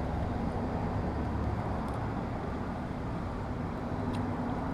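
Steady low background rumble and hiss, with a couple of faint clicks.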